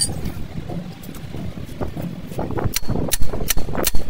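Repeated sharp metallic knocks, about two or three a second, starting about two seconds in, over a low steady rumble.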